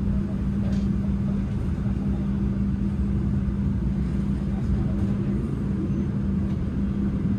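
Steady low rumble of a passenger train running along the track, heard from inside the carriage, with a constant low hum underneath.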